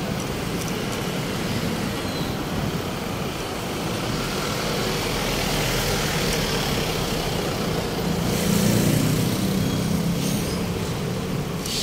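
City road traffic: a steady wash of passing vehicles, with a heavy vehicle rumbling past louder about two-thirds of the way in.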